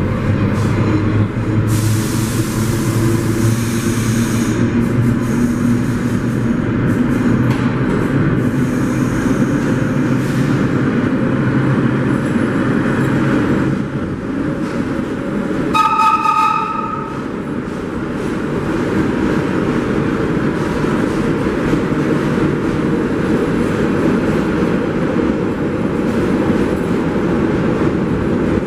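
1930s R1-9 subway cars running along a station platform: a steady rumble of wheels on rail with motor whine, a hiss about two seconds in, and a short horn blast about sixteen seconds in.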